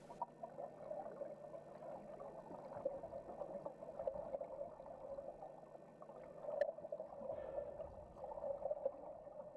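Faint, muffled underwater water sound: an uneven gurgling wash, with small irregular ticks and one sharp click about two-thirds through.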